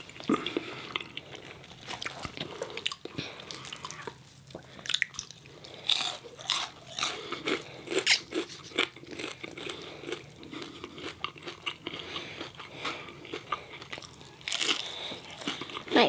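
Close-up eating sounds: crisp bites and chewing of fried breaded chicken fingers, irregular crunches with wet mouth sounds between them.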